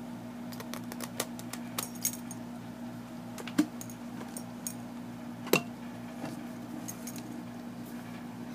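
Dog worrying a plush squeaker toy, its collar tags jingling in scattered small clicks, with two sharper clinks about three and a half and five and a half seconds in. A steady low hum runs underneath.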